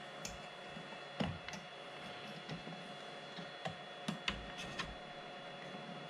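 A server CPU heat sink being handled and seated on its socket: scattered light clicks and taps of metal and plastic, the sharpest about a second in and a few more close together around four seconds in, over a faint steady hum.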